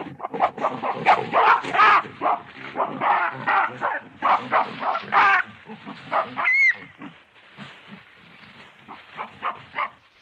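Designed primate creature call mixed from gorilla and baboon recordings: a rapid series of loud barks and grunts, a brief high squeal a little past the middle, then quieter, scattered grunts.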